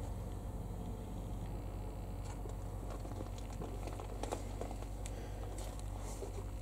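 Quiet background: a low steady hum with a few faint scattered ticks and rustles.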